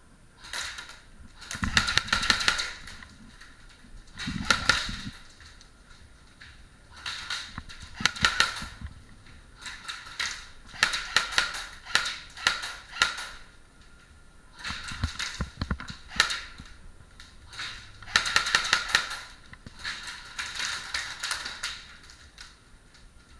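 Airsoft electric guns firing in rapid bursts of sharp clicking shots, about eight bursts of one to three seconds each with short pauses between. A few dull thumps come with the bursts in the first five seconds.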